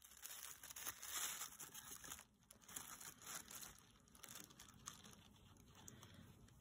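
Faint rustling and crinkling of tissue paper as a hamster moves about on it, in uneven bursts that are strongest in the first three seconds or so and die down after.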